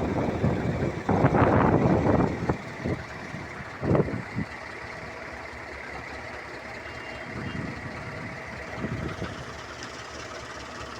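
Heavy construction machinery on a bridge pile-foundation site, with loud rumbling in the first couple of seconds and a sharp knock about four seconds in, then running more quietly.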